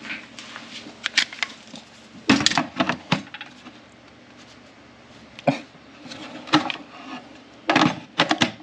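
Scattered knocks and clatters of tools and small hardware handled against wood, with the loudest bunches about two seconds in and near the end.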